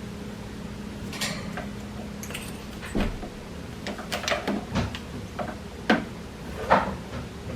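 African grey parrot playing with his toys: a run of irregular clacks and clatters of toys being handled, knocked and dropped, the two loudest near the end.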